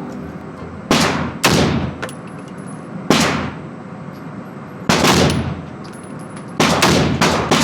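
Gunshots fired at a range, single shots at uneven intervals, each with a long echoing tail, ending with a quicker run of three or four shots.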